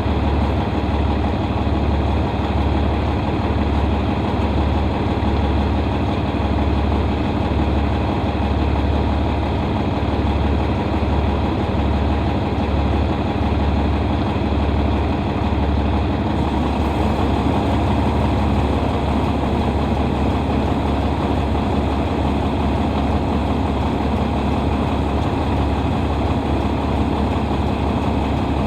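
A farm vehicle's diesel engine running steadily at an even, low drone.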